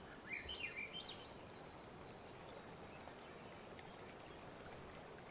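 A songbird singing one short phrase of quick, high chirped notes in the first second, over a faint steady hiss of outdoor background noise.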